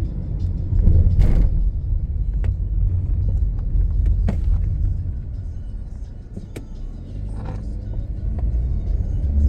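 Car cabin rumble while driving: steady low road and engine noise with a few light clicks and rattles, easing off briefly around the middle.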